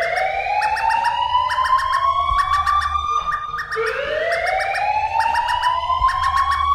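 Emergency alert alarm tone: a siren-like wail climbs slowly in pitch for a few seconds, drops back and climbs again about halfway through. Groups of quick, high beeps repeat over it, with a low hum underneath.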